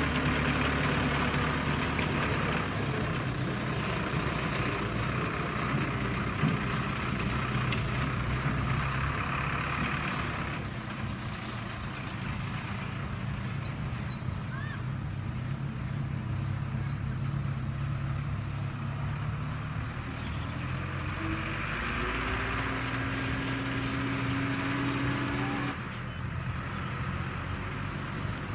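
Diesel engine of heavy construction machinery running steadily. About three quarters of the way through, a rising whine builds for a few seconds and then stops suddenly.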